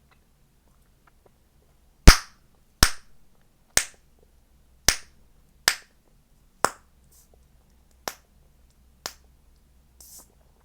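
Chewing gum being popped in the mouth: eight sharp snaps roughly a second apart, starting about two seconds in and growing quieter, with a softer one near the end.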